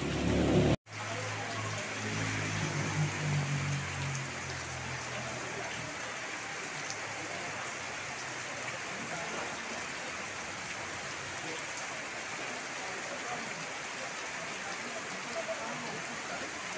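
Steady heavy rain falling and pattering on the ground, puddles and outdoor furniture. A low murmur sits under the rain for the first few seconds, and the sound drops out briefly just under a second in at an edit.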